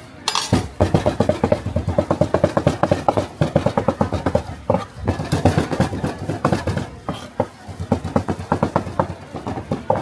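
Cleaver rapidly chopping meat for roujiamo, several sharp strikes a second with a couple of brief pauses.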